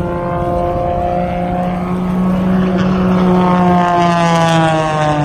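Piston engine and propeller of a low-flying aerobatic race plane, a steady buzzing drone whose pitch falls over the last second or so as the plane passes by.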